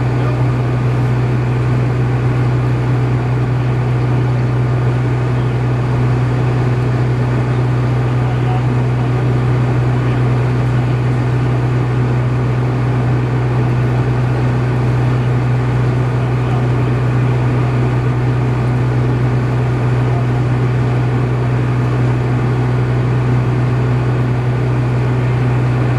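An engine running steadily at constant speed: a loud, unchanging low hum with overtones.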